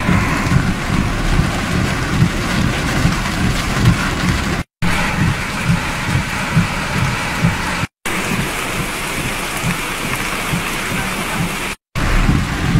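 Heavy rain pelting a car's roof and windshield, heard from inside the car, a dense hiss with an irregular low rumble underneath. It breaks off for a split second three times.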